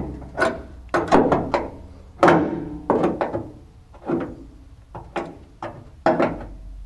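Steel pliers clacking against the metal headliner grippers and body panel of a VW Beetle as the gripper teeth are bent open: a string of irregular, sharp metallic knocks, each with a brief ring.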